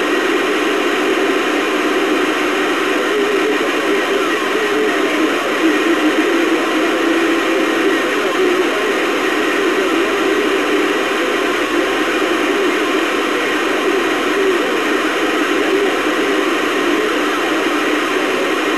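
CB radio static: a steady hiss of band noise with no clear voice coming through.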